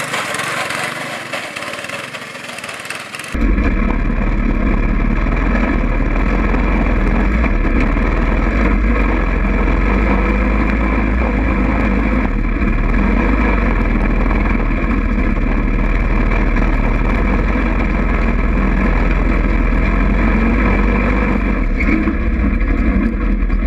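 Small go-kart engine running as the kart drives across a grass field. About three seconds in, the sound cuts abruptly to a closer, steady engine drone with a heavy low rumble, heard from on board the moving kart.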